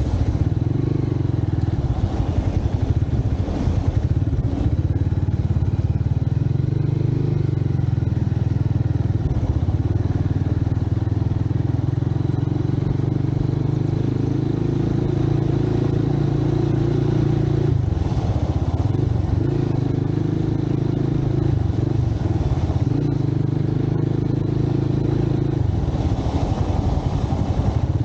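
Motorcycle engine running steadily while being ridden, with the engine note changing briefly about two-thirds of the way through and again near the end.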